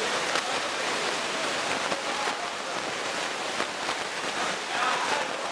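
Crowd noise at a live cage fight: a steady din of many voices shouting and calling out, with single shouts standing out now and then.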